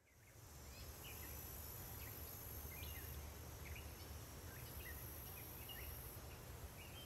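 Faint woodland ambience fading in: scattered short bird chirps over a thin, high insect drone that comes and goes.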